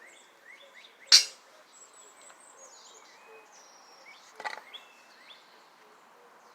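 Wild birds chirping and calling in the background, with one sharp knock about a second in and a short cluster of softer clicks a little after four seconds.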